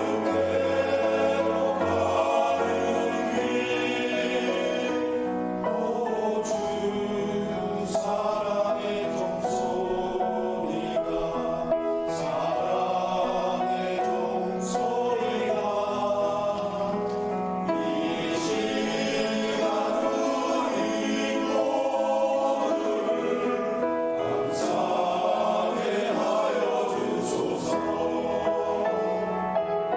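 Choir singing a hymn, with several voices holding long sung notes together.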